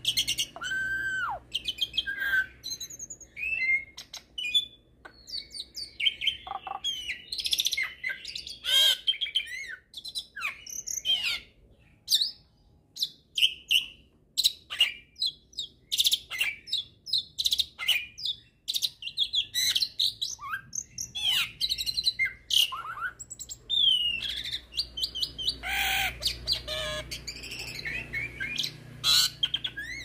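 A hybrid jalak (jalak nias × jalak suren cross, a myna–starling hybrid) singing a long, varied song. It mixes clear whistles that rise and fall, quick chirps and harsh rasping notes, with a short pause about twelve seconds in.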